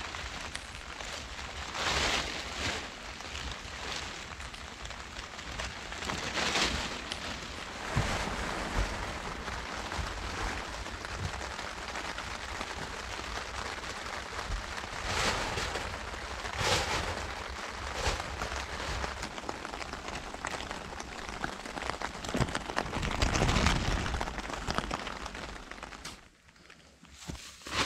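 Plastic tarpaulin rustling and crinkling as it is pulled and spread over a log frame, in several louder swells over a steady hiss.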